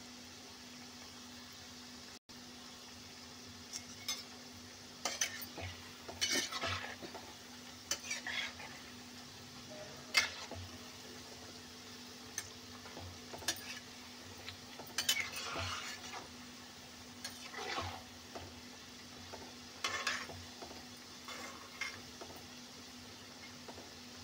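Onion pakoras in gram-flour batter deep-frying in hot oil with a steady sizzle. From about four seconds in, a flat steel spatula scrapes and clinks against the pan in irregular strokes as it stirs and turns them.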